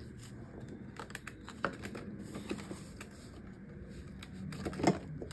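Paper banknotes being handled and counted by hand: irregular crisp crackles and snaps of the bills as they are fanned and tucked into a binder's envelope pocket, with one louder crackle near the end.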